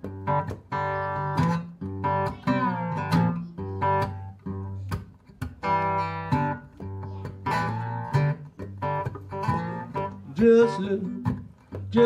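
Small-bodied acoustic guitar playing a country blues introduction: picked notes over a steady low bass, some of them sliding up or down in pitch.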